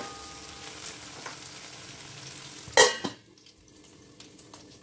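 Taro stolons and green chillies sizzling in oil in a metal kadai, then a metal lid set down on the pan with a sharp clang near three seconds in; once covered, the sizzle goes much quieter and muffled.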